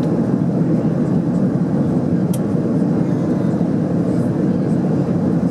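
Steady in-flight cabin noise inside an Airbus A330-200 airliner: an even, unbroken noise weighted low, with a faint steady hum. A small click sounds about two seconds in.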